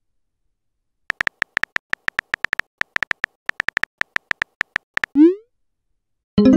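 Phone-keyboard typing sound effect: a fast run of short, high tapping clicks, about seven a second, for about four seconds. A short blip rising in pitch follows as the message is sent, and a louder electronic tone starts just before the end.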